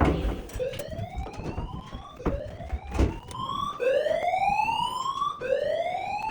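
Fire alarm evacuation tone: a slow whoop rising in pitch, repeating about every one and a half seconds. It starts a moment in and is louder from the third whoop. A sharp knock sounds at the start and another about three seconds in.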